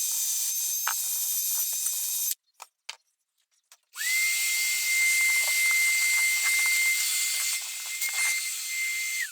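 Small power tool working the metal of a pair of pliers to clean off rust and light scratches: a steady hissing grind over a high motor whine. It stops about two seconds in, starts again after a short silence with a steady whine, and winds down with a falling pitch at the end.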